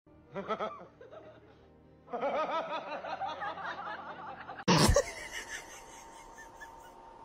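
Music with a person laughing, and a brief loud noise about five seconds in.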